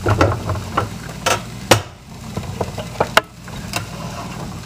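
A utensil clinking and scraping against a cast-iron skillet and a plate as fried potatoes and vegetables are served out: a string of sharp knocks and scrapes, about eight in all, over a steady low hum.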